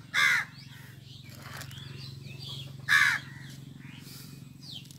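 Two short, loud bird calls about three seconds apart, with fainter bird chirps between them, over a low steady hum.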